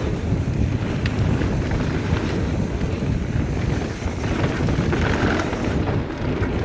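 Wind buffeting the microphone and mountain bike tyres rolling fast over a dirt trail, with short knocks and rattles of the bike over bumps.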